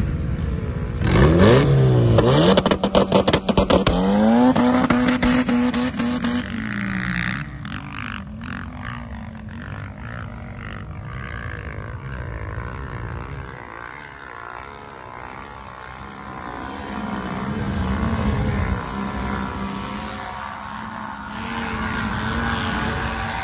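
Turbocharged Honda F20B engine in a mid-engine CRX revving hard on sand, its pitch sweeping up and down, with rapid clattering over it. After about seven seconds it drops to a quieter, more distant engine sound.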